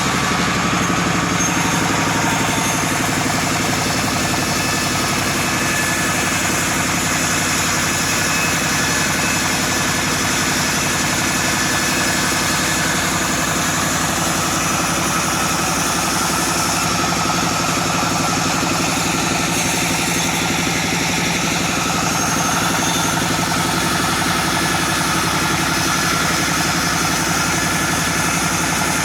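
Chainsaw engine running steadily at an even pitch, as when ripping a sengon log into boards.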